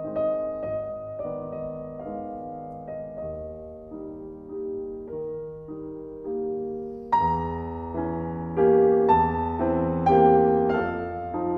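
Slow piano music that becomes louder and fuller, with chords, about seven seconds in.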